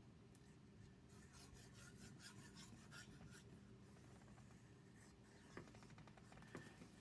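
Faint scratching as the fine tip of a liquid glue bottle is drawn along a strip of paper, laying down a line of glue, with a couple of small taps in the second half.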